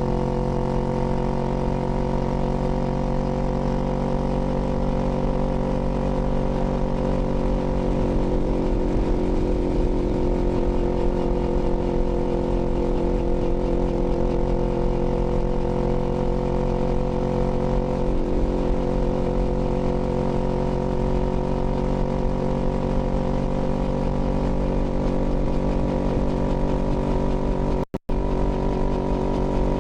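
Kawasaki Z400's parallel-twin engine running at a steady, nearly constant pitch while cruising. Near the end the sound cuts out completely for a split second.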